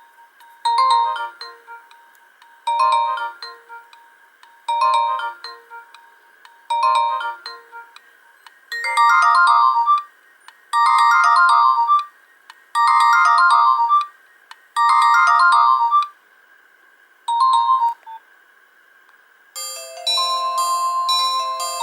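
Nokia 1110i ringtone: a short beeping tune repeated about every two seconds, then four longer phrases of the tune. Near the end a different ringtone with a bell-like chime begins.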